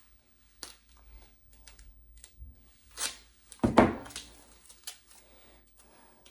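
Gorilla duct tape being worked around the edge of a picture frame: scattered rustles and clicks of tape and frame being handled, with one louder ripping burst a little past the middle as tape comes off the roll.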